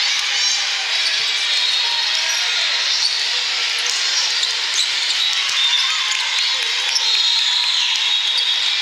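Din of a big hall with many volleyball games going at once: overlapping voices and shouts, high sneaker squeaks on the court flooring, and scattered ball hits.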